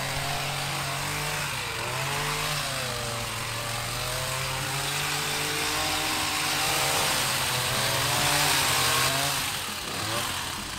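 Motorised hedge trimmer running as it cuts through a hedge, its pitch wavering up and down.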